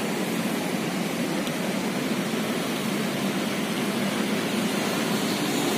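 Steady, even rushing background noise with no distinct sound standing out.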